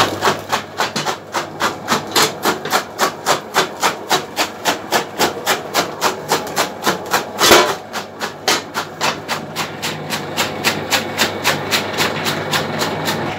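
A 1970 electric chaff cutter chopping green corn stalks. A steady motor hum runs under a regular chopping, about three to four strokes a second, with one louder crunch about seven and a half seconds in.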